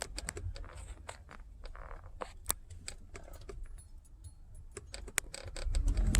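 Scattered light clicks and rattles inside the car over the low hum of the Honda Accord's engine at idle; near the end the engine grows much louder as the car pulls away under throttle.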